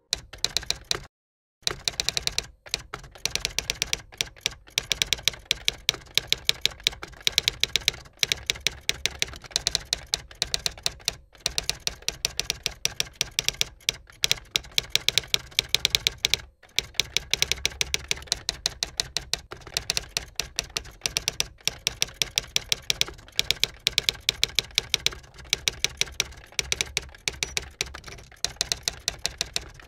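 Manual typewriter typing: a fast, steady run of key strikes, broken by a few short pauses.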